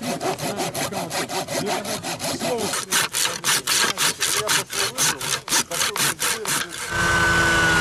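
A hand saw cutting with quick, even back-and-forth strokes. Near the end the sawing stops and a snowmobile engine is heard running steadily.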